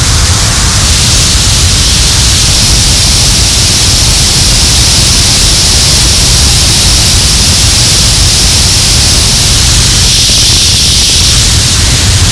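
Harsh noise music: a loud, unbroken wall of distorted static with a heavy low rumble and a bright hiss high up, its texture shifting slightly about ten seconds in.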